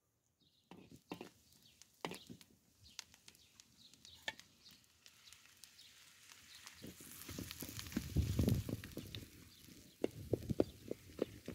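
Ground beef and onions start sizzling in a wok over an open wood fire a little past the middle of the clip, with a metal spatula scraping and tapping the pan. Scattered sharp clicks and knocks come before the sizzle.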